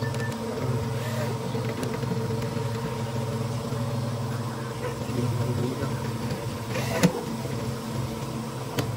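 An engine idling steadily, with a single sharp click about seven seconds in.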